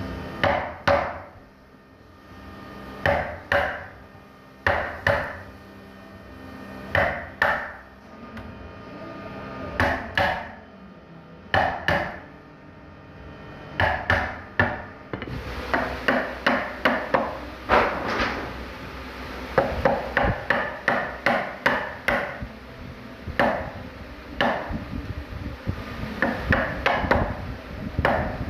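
Wooden mallet striking a wood chisel, chopping a notch into a wooden board. The blows come in pairs about every two seconds at first, then from about halfway through in quicker runs of several strikes.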